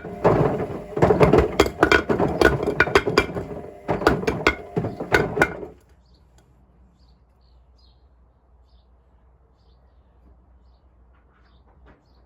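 Bricks tumbling in the drum of a Hotpoint Smart Tech WMFUG742 washing machine: loud, rapid, irregular clattering and banging as they strike the drum and door glass. About six seconds in it stops suddenly as the drum comes to rest, leaving only a faint low hum.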